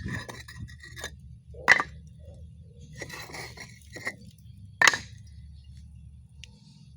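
Pavers being shifted and sorted by hand: hard clacks as they knock against each other, two of them loud, with scraping between.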